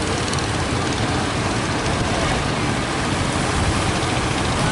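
Steady roar of heavy surf, with wind buffeting the microphone.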